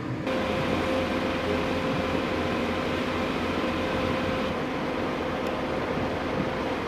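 Boat engine running steadily: a constant low hum with a steady rushing noise over it, starting abruptly just after the start.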